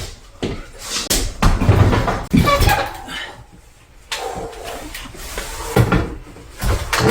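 Firewood being split with an axe: several sharp knocks at uneven intervals, with a voice briefly in between.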